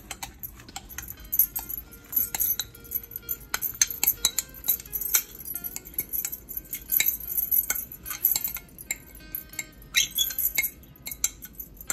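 Metal spoon scraping and tapping against a bowl, clinking many times in an irregular run, as diced green apple is scraped out into a pot.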